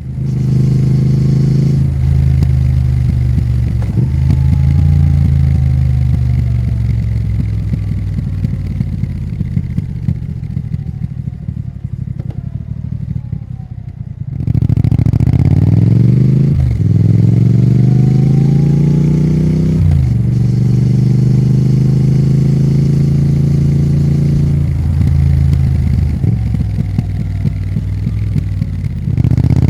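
Triumph Thruxton RS motorcycle's 1200 cc parallel-twin engine being ridden. The note falls slowly as it rolls off, then picks up suddenly about halfway and climbs through the gears, with short dips at each upshift.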